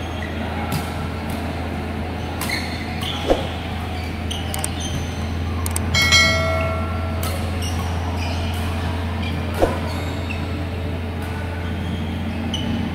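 Badminton rally: sharp racket-on-shuttlecock hits, the two loudest about three and ten seconds in, over a steady low hum of the hall. About six seconds in, a short chiming sound effect plays with an on-screen subscribe-button animation.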